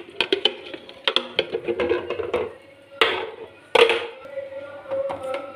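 A steel spoon clinking and scraping against a steel kadhai while roasted wheat flour is stirred with solid desi ghee: irregular clinks and knocks, the loudest about three and four seconds in. A steady tone sounds under it from about four seconds in.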